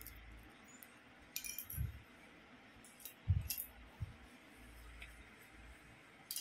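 Small plastic building-brick pieces set down on a tile floor: three short clicking clatters about one and a half, three and a half and four seconds in, each with a soft thump.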